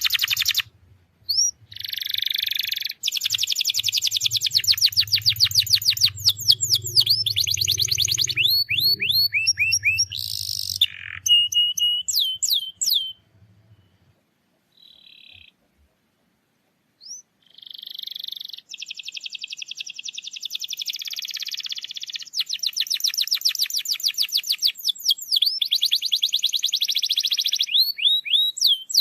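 Domestic canary singing long, fast trills of rapidly repeated high notes, with a pause of a few seconds near the middle before the song starts again.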